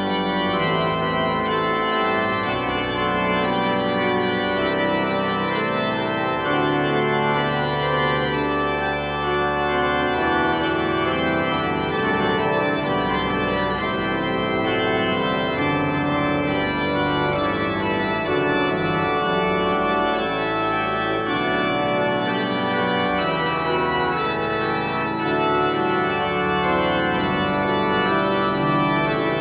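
Background music: slow, held organ chords that change every few seconds.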